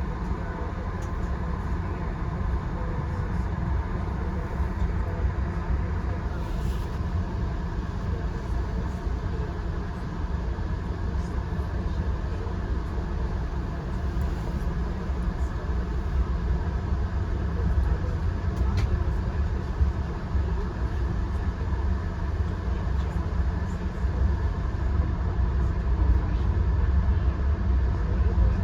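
Steady low rumble of a VIA Rail passenger train in motion, its wheels running on the rails, heard from on board, with a few faint clicks. It grows a little louder near the end.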